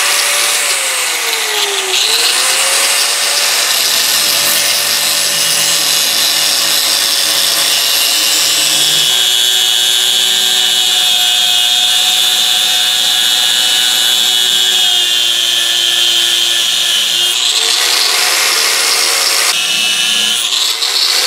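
Electric angle grinder with a sanding disc grinding the rust-pitted steel head of an antique Plumb axe, throwing sparks. Its motor whine dips and recovers in pitch several times over a steady grinding hiss.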